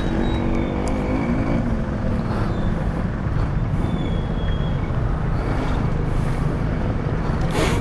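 A motor vehicle engine running steadily under a dense low rumble, its pitch shifting during the first second or so.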